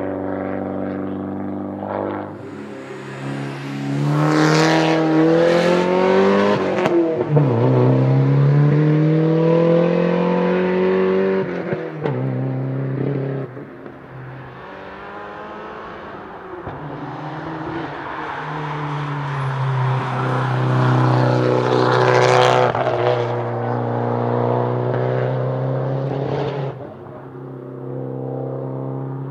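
Two Porsche 944 Turbo Cup race cars' turbocharged 2.5-litre four-cylinder engines accelerating hard uphill one after the other. The first rises in pitch through the revs, drops at an upshift about seven seconds in, then climbs again. The second builds from about fifteen seconds in and drops away suddenly near the end.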